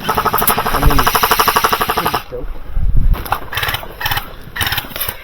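Airsoft electric gun firing on full auto: a fast, even rattle of shots lasting about two seconds, followed by shorter, scattered bursts.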